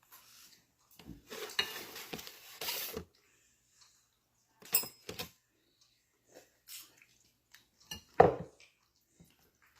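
Dishes and cutlery clattering: about two seconds of a spoon scraping and clinking against a plate or bowl, then a few separate clinks and knocks.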